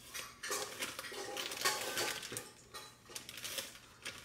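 Wire whisk beating batter in a glass bowl: rapid, irregular clinks and scrapes of metal against glass.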